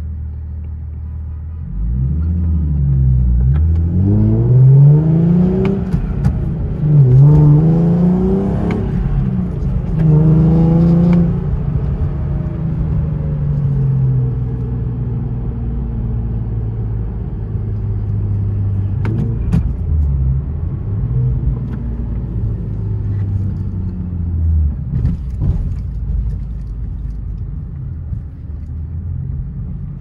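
2017 Nissan 370Z's 3.7-litre V6 with test pipes and an Invidia Gemini cat-back exhaust, heard from inside the cabin. It runs steadily at first, then pulls hard through the gears, the revs rising four times in quick succession with a break at each upshift. After that it settles into cruising, the revs rising and falling gently.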